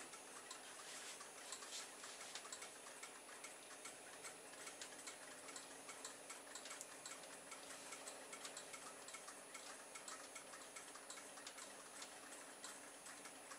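Faint, rapid, irregular ticking from several solar-powered 'solar mover' novelty toys.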